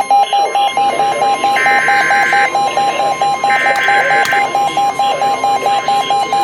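Weather alert receiver's electronic alarm beeping rapidly, about five beeps a second, over a steady alert tone. Two buzzy Emergency Alert System data bursts, each about a second long, come through in the first half, signalling a new warning being issued.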